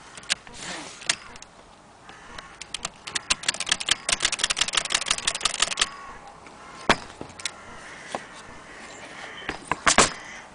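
Keys being typed on a 1920s aluminum Blickensderfer Featherweight typewriter: a fast run of clicking keystrokes for about three seconds, then a few single, sharper strokes.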